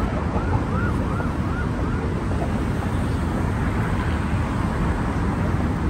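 Steady rumble of city road traffic and wind on the microphone. A distant siren's yelp, a quick rising-and-falling tone about three times a second, sounds for the first two seconds.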